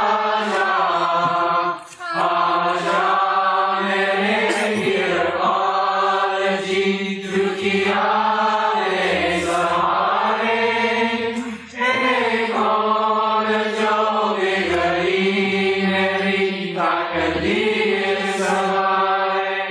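Devotional chant sung in long, held notes, with two brief pauses for breath and an abrupt cut-off at the end.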